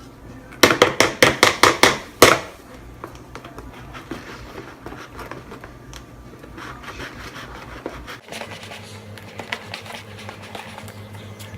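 A quick run of about nine sharp knocks as a mixing utensil is rapped against the bowl, then steady scraping and rubbing as the slime mixture is stirred.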